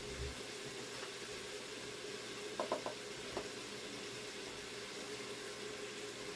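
Sliced onions sizzling gently in an Instant Pot's stainless inner pot, a steady soft hiss with a low hum underneath. A quick run of three light clicks comes about two and a half seconds in, and one more shortly after.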